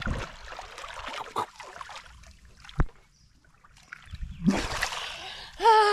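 Water sloshing and splashing around people wading and feeling under submerged structures, with a sharp knock about three seconds in. A voice calls out near the end.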